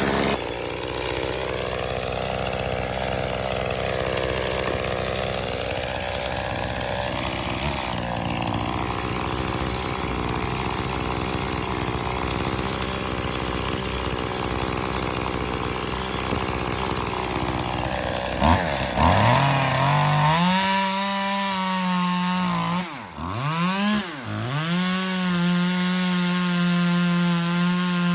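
Echo CS-2511T top-handle chainsaw's small two-stroke engine running under load as it cuts wood. About two-thirds of the way in it rises to a high, steady unloaded rev, with two brief drops in pitch near the end.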